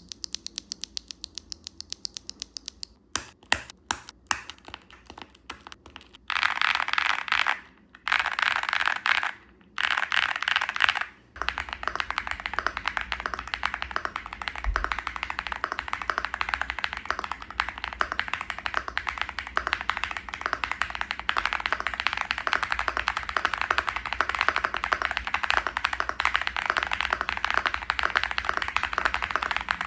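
Typing on a Wobkey Crush80 mechanical keyboard with an FR4 plate, full foam, Gateron Beer tactile switches and GMK Apollo keycaps, a loud, medium-pitched key sound. It starts with evenly spaced single keystrokes, then short runs of fast typing with pauses, and from about a third of the way in becomes an unbroken stream of fast typing.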